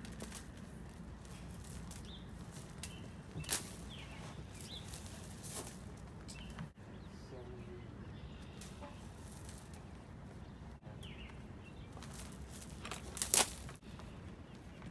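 Extension cord being pulled in and coiled by hand, its length dragging and rustling over gravel, with two sharp knocks about three and a half seconds in and near the end. Faint bird chirps come and go over a low steady outdoor rumble.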